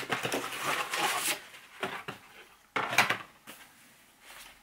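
Cardboard book mailer being pulled open and a paperback slid out of it: scraping and rustling of stiff cardboard, with a sharp knock or slap of cardboard about three seconds in.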